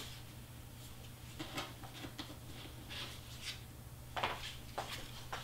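Faint scattered clicks and rustles of paper pieces being handled, with a couple of slightly louder clicks near the end, over a steady low electrical hum.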